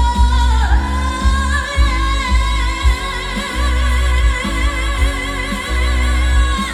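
Female trot singer performing live over an amplified backing track with a heavy, regular bass beat, holding one long note with a wavering vibrato that ends just before the close.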